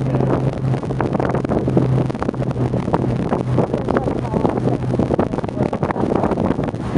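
The 1957 Ford Skyliner's 312 cu in Y-block V8 running on the road, heard from inside the open car, with its steady low note weakening after about four seconds. Heavy wind buffets the microphone throughout.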